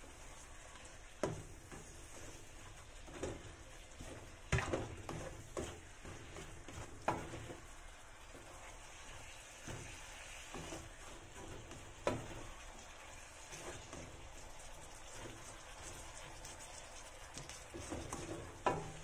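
Vegetables sizzling in a wok as they are stir-fried, with a spatula scraping and knocking against the pan at irregular moments, sharpest about four and a half seconds in.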